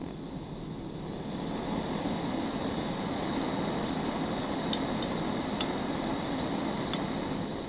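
Iwatani-Primus P-173 gas burner running with a steady hiss of flame that grows louder about a second and a half in, with a few sharp ticks in the second half. The ticks are the intermittent puffing of gas escaping from the bracket around the igniter electrode, an abnormal, grating noise the owner hears at an ordinary valve setting.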